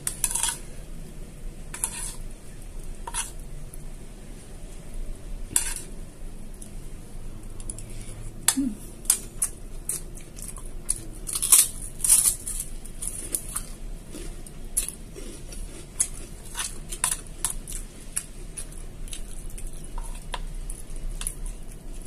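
Metal spoon clinking and scraping against a ceramic bowl while scooping up food, in irregular clinks that come thickest about halfway through.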